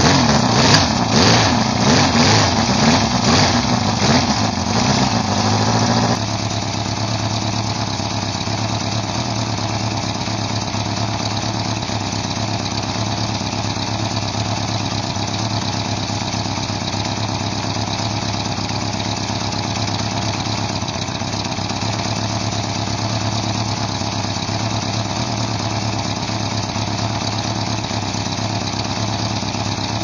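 1977 Honda CB550F's air-cooled inline-four engine, through a four-into-one exhaust, running just after a very cold start. It is revved unevenly with the throttle for about six seconds, then settles into a steady idle.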